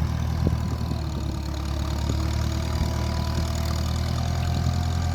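An engine idling steadily with an even low drone.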